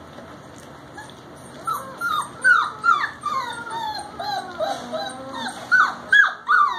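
Four-week-old puppy whining and yelping in a run of short high cries, each falling in pitch, about three a second, beginning about a second and a half in. The pup is unhappy when he is not attached to his mother.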